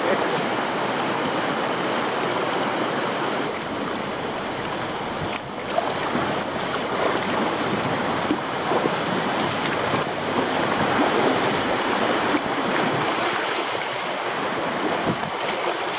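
Rushing river water running through low rapids around a sit-on-top fishing kayak.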